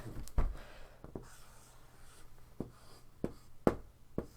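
Marker writing on a whiteboard: faint scratchy strokes broken by several sharp taps of the marker against the board.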